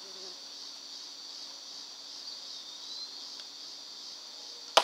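A training bow shot: a single sharp snap of the bowstring as the arrow is loosed, just before the end. Under it, a steady buzz of insects.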